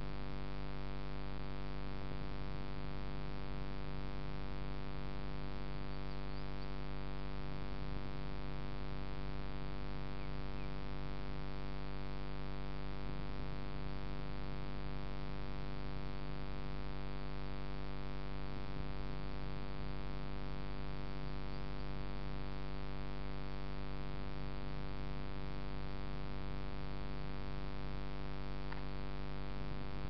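A steady electrical hum and buzz, rich in evenly spaced overtones, holding one pitch and level without change.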